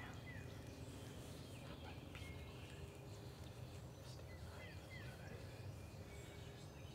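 Faint birdsong in spring woods: scattered short chirps and whistles over a low, steady rumble.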